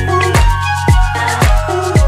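Background music with a steady electronic dance beat, a deep kick drum about twice a second.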